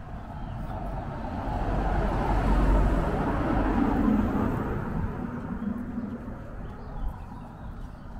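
A motor vehicle driving past, its engine and tyre noise swelling to the loudest point about three seconds in and then fading away.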